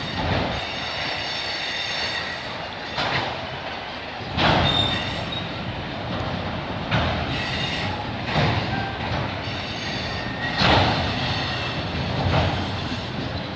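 Train rolling past close by: a steady rumble of steel wheels on rail, with thin high wheel squeals and a loud knock every couple of seconds.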